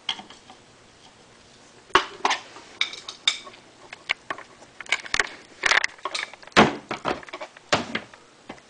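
Handling noise: irregular clinks, knocks and clattering, starting about two seconds in and coming several times a second at their busiest.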